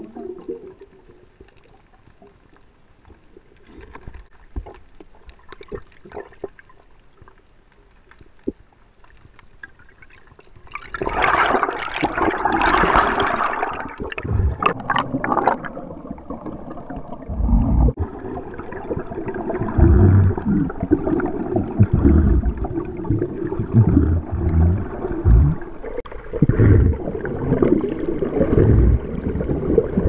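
Muffled underwater sound through a GoPro's waterproof housing: quiet at first, then from about eleven seconds in a loud rush of bubbling water lasting a few seconds, followed by repeated deep knocks and swishes of water moving past the camera.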